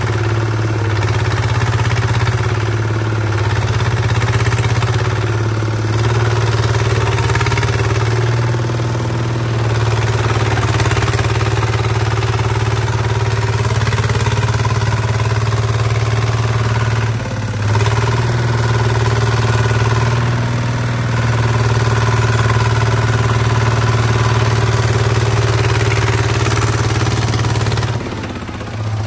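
Small Kubota-engined bulldozer's engine running steadily, with a brief dip in the sound about 17 seconds in and another near the end.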